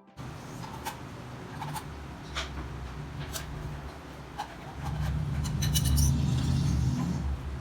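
Home air bike being pedalled, its fan and drive making a low whirring rumble that grows louder about five seconds in, with scattered light clicks and knocks from the frame.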